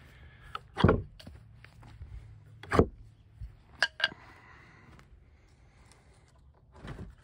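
A person walking over sawdust and dry grass, with two loud thumps about two seconds apart and then a few sharper clicks.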